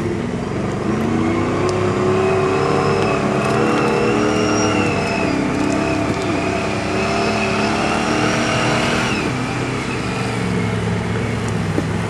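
Lifted Chevrolet pickup's engine revving hard as it churns through deep mud, pitch rising and falling with the throttle, then easing off to a lower, steadier run about nine seconds in.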